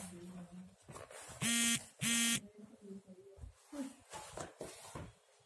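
Two short, loud buzzing beeps, each held steady for under half a second, about half a second apart. Around them, plastic packaging rustles and crinkles as a boxed item is handled.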